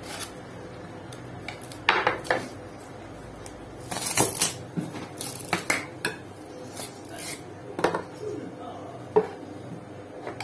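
A butcher's knife clinking and tapping against a wooden chopping board in irregular sharp knocks while membrane and fat are cut away from a rack of breast ribs.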